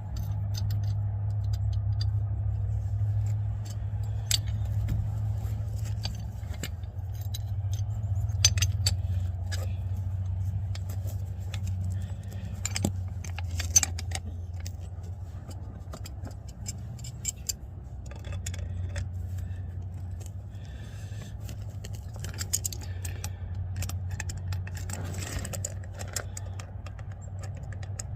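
Scattered metallic clinks and scrapes of hand tools working on a stuck drum-brake part, over a steady low rumble.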